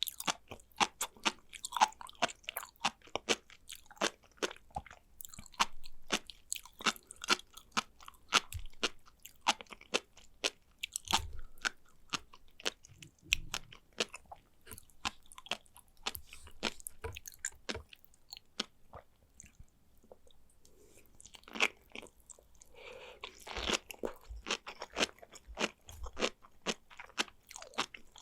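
Sea grapes chewed close to the microphone: a rapid, uneven run of small crisp clicks and crunches as the beads burst, with a short lull about twenty seconds in.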